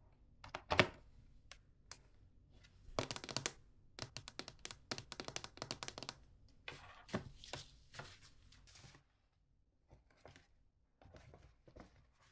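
Close handling noises: a run of irregular rustles, scrapes and clicks, with one sharper knock about a second in and a pause before a last short burst near the end.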